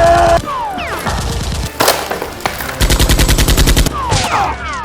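Gunfire sound effects: a single shot, then a rapid automatic burst of about a dozen shots in one second, with falling whistling tones before and after.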